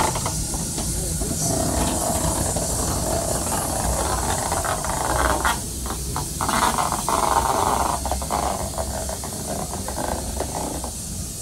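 Three-cylinder Shay geared steam locomotive moving off slowly, with a loud steam hiss over a run of quick, uneven exhaust beats, easing slightly near the end as it draws away.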